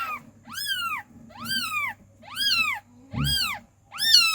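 Newborn kittens mewing: thin, high-pitched cries, each rising and then falling in pitch, repeated about once a second.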